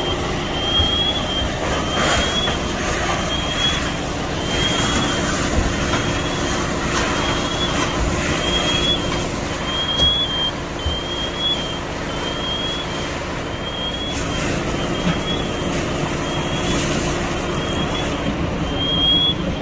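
Scania fire trucks' diesel engines running steadily at the pump, with the hiss of a hose jet spraying water. Over it, a short high electronic chirp repeats about every 0.8 seconds.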